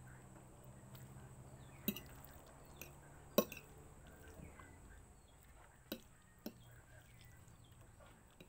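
A metal fork clinking against a ceramic plate of spaghetti, a few sharp separate clinks, the loudest about three and a half seconds in. A low steady hum and faint bird chirps sit behind.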